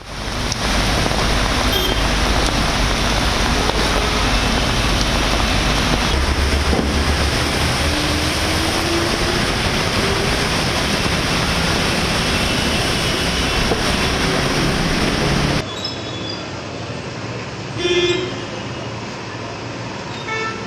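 Loud, steady road-traffic noise with a vehicle engine rumbling, its pitch climbing slowly in the middle. Near the end it cuts suddenly to quieter street sound with a short horn toot.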